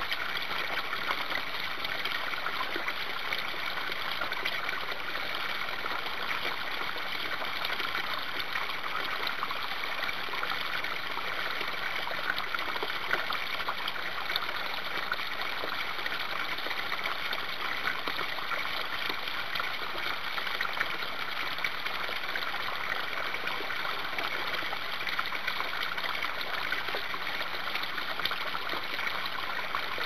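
Small stream running and falling over rock ledges, a steady sound of running water.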